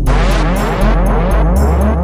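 Electronic dance beat with a deep bass line, with a DJ sound effect dropped in at the start: a sudden burst of noise with quick repeating pitch sweeps inside it, fading out over about a second and a half.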